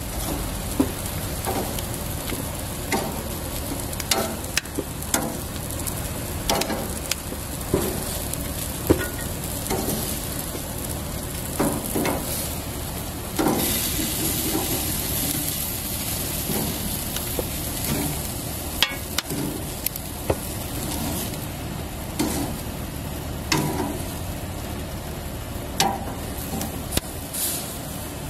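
Grilled vegetables sizzling steadily on a grill grate while metal tongs click and clack against the grate and a stainless steel pan as the pieces are lifted off, with frequent sharp clicks over the sizzle.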